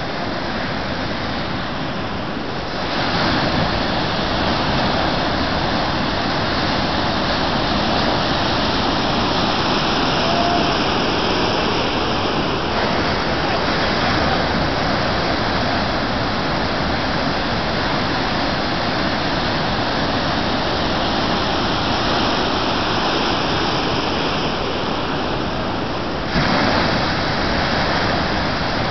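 Ocean surf breaking below a pier, a steady rush of waves and foaming whitewater that grows louder about three seconds in.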